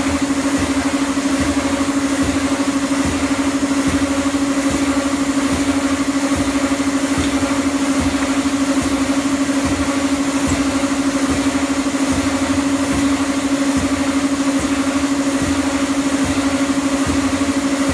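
Escalator step-cleaning machine running over the moving escalator steps: a steady machine hum with a fast, even ripple and low knocks recurring.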